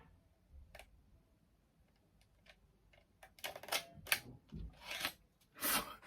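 Sony Mavica floppy-disk digital camera being handled: a few faint clicks, then from about three seconds in a quick run of sharp clicks and short clunks from its buttons and disk mechanism.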